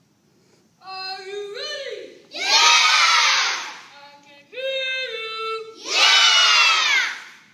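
Call-and-response chant by children: a single voice sings out a short line that steps up in pitch, and a group of children shouts back in unison with their pitch falling away, twice over. The group's answers are the loudest part.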